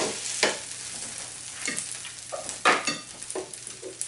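A toasted sandwich sizzling on a hot panini press's grill plate while a spatula scrapes it off, with several sharp scrapes and knocks, the loudest about two and a half seconds in.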